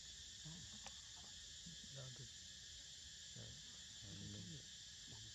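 Faint, steady insect chorus with a high, even hiss. Faint low voices come and go underneath in short snatches.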